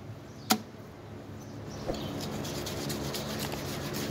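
A knife cutting into a large shark's hide and flesh: one sharp knock about half a second in, a lighter one near two seconds, then a dense scratchy crackle as the blade saws through. A steady low hum runs underneath.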